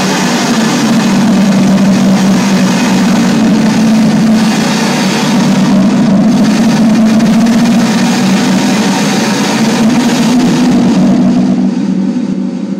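Loud, dense electronic noise with a steady low drone, played live on tabletop electronics; it thins out near the end.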